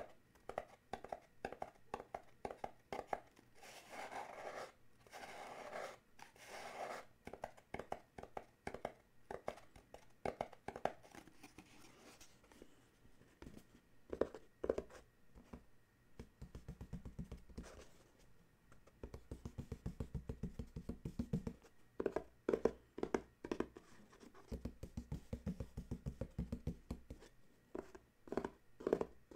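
Fingertips and nails tapping and scratching on a small cardboard box: quick scratches and light taps, then two long runs of rapid, deeper drumming taps in the second half.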